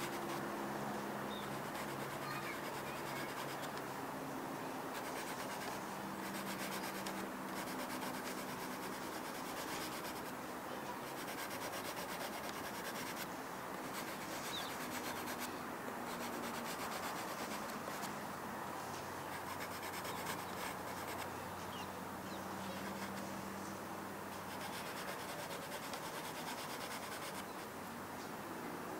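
A soft pastel stick rubbing and scratching across sketchbook paper in continuous back-and-forth strokes, a dry papery scrubbing sound.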